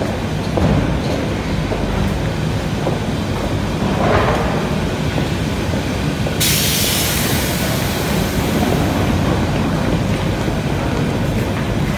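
Electric commuter train running: steady noise of the moving carriage, with a hiss that starts suddenly about halfway through and fades away over a few seconds.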